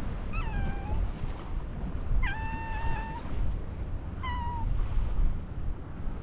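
A cat meowing three times: a short call, a longer drawn-out one, then a brief one, over a steady low rumble of wind on the microphone.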